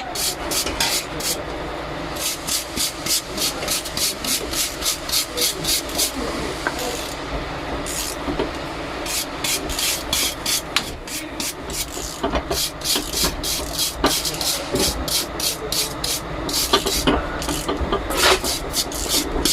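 Rhythmic rasping strokes of hand scraping or filing, about three a second, in runs with short pauses between them.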